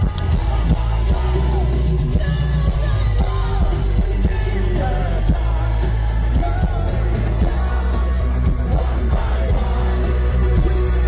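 Hard rock band playing live through a festival PA: a male singer's vocals over drums, bass, guitar and keyboards, with a heavy, booming low end.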